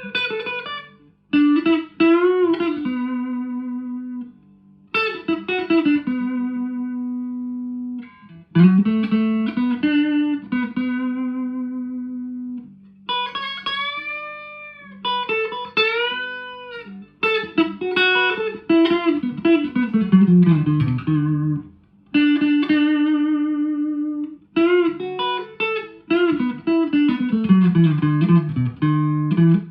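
1983 Squier JV Telecaster played through channel 1 of a 1963 Selmer Thunderbird Fifty valve amp with Celestion Greenback speakers: single-note lead phrases with string bends, vibrato and downward slides, separated by short pauses.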